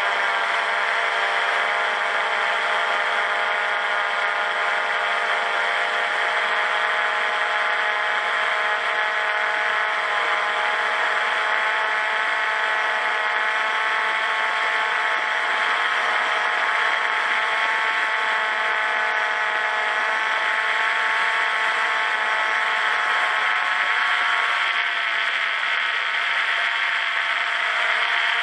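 Quadcopter drone's electric motors and propellers whining steadily in flight, heard up close from a camera mounted on the drone itself, the pitch shifting a little near the end.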